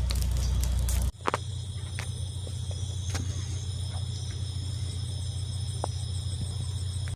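A wood fire crackling with scattered sharp pops over a steady, shrill insect chorus and a low hum. The sound changes abruptly about a second in, as at a cut.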